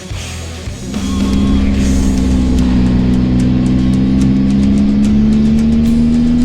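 Rock music playing, and from about a second in a Triumph Tiger 800 XRT's three-cylinder engine pulling steadily under way, its pitch slowly rising as the motorcycle gathers speed.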